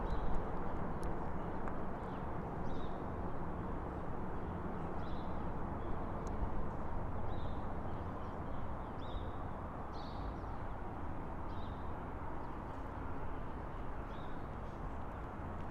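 Footsteps crunching on a gravel path over a steady low rumble, with short high bird chirps every second or so.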